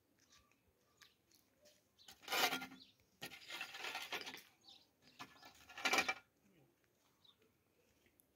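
Metal shovel blade scraping over hard, stony dirt ground in three strokes, the first and last short and sharp, the middle one longer.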